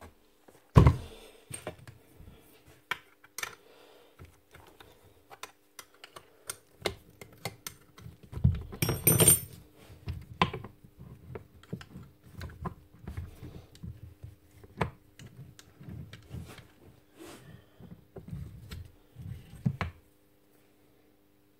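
Metal parts of a Rotabroach magnetic drill being handled: irregular clicks and knocks as the spindle and arbor support bracket are fitted, moved and set down. There is a louder knock about a second in and a short scraping rattle around the middle, and it stops shortly before the end.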